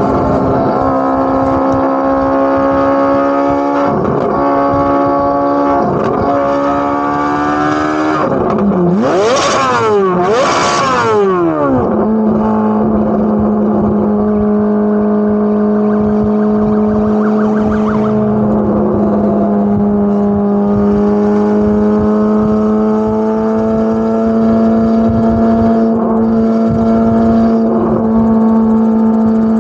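Chevrolet Corvette C8 Z06's flat-plane-crank 5.5-litre V8 exhaust running under steady throttle, its pitch dipping briefly twice. About a third of the way in it swings sharply down and back up twice, then settles to a lower, steady drone to the end.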